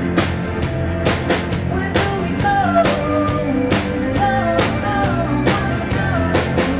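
Live rock band playing a song: a steady drum-kit beat under a woman singing.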